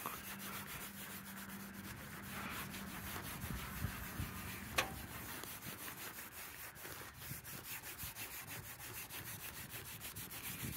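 Microfiber cloth rubbed back and forth over textured plastic bumper trim, a continuous scuffing as trim restorer is worked in, with a sharp click about five seconds in.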